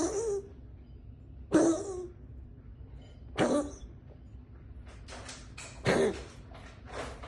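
Young tabby domestic shorthair cat coughing: short, harsh hacks about every two seconds, with a quick run of several hacks around five to six seconds in. It is a persistent cough of unknown cause.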